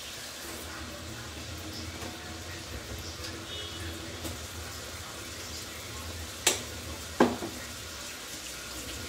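Pans of food simmering and sizzling on a stovetop, a steady sizzle. About two-thirds of the way through come two sharp knocks, close together.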